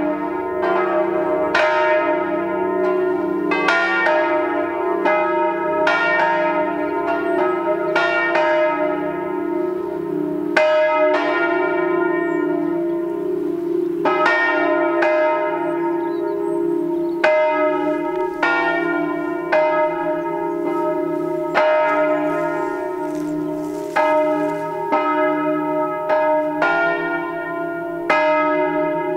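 Peal of swinging church bells from a ring of bronze bells tuned to a diatonic scale on E-flat, several bells striking in an uneven overlapping pattern. Strokes come roughly once a second over a sustained hum from the ringing bells.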